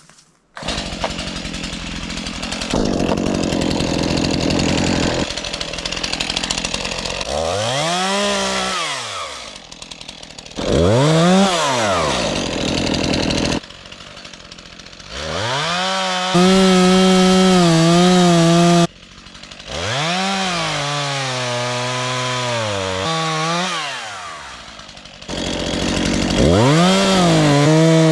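Two-stroke chainsaw running, starting about half a second in and then revved up and down again and again, held at high revs for a few seconds at a time, as used in felling beetle-kill spruce trees.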